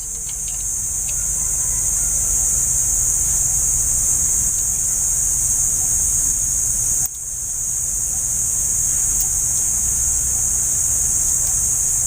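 Steady high-pitched insect chorus with a low hum beneath it; both drop away briefly about seven seconds in and then come back.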